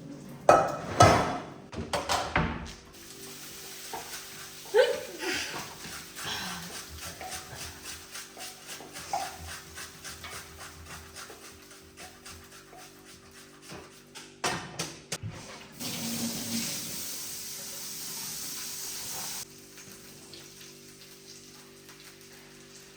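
Kitchen clatter of pots and utensils, with several sharp knocks near the start and again about fifteen seconds in, over steady background music. A rushing hiss runs for a few seconds and then cuts off suddenly.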